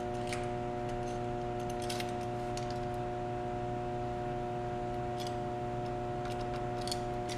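A few faint clicks and taps of wooden boards and a metal corner clamp being handled and tightened on a metal workbench, over a steady electrical hum.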